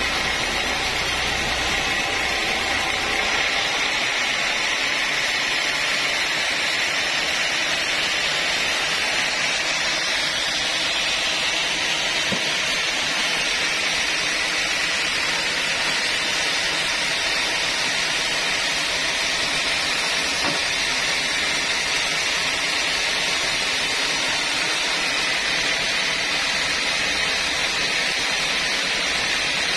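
Band sawmill running, its blade cutting lengthwise through a large log with a steady hiss.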